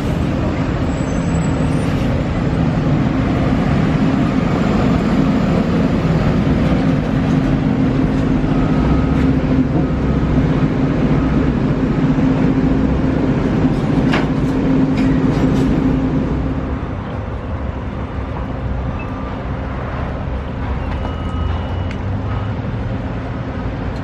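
Roadside traffic noise with a steady engine hum, which drops away about two-thirds of the way through, leaving a quieter hum of traffic.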